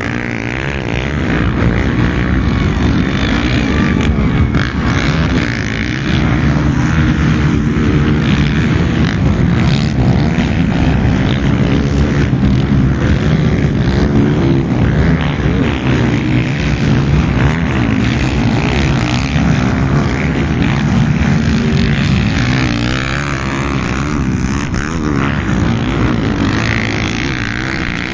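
Motocross bikes' engines running and revving around a dirt track, their pitch rising and falling as the riders accelerate and back off.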